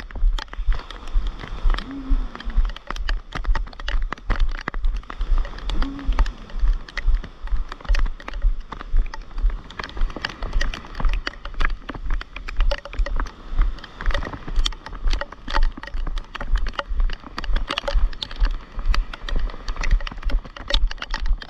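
Raindrops ticking fast and irregularly on an action camera's housing, over the low rhythmic thuds of walking footsteps on wet sand.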